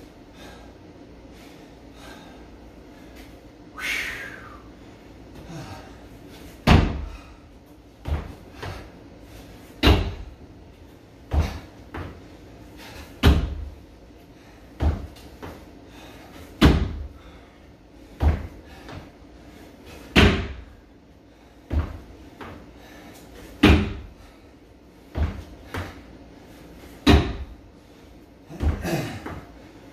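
Feet landing on a homemade wooden plyometric box during box jumps: a loud hollow thud about every three and a half seconds, each followed by a softer thud as he steps back down onto the floor mat.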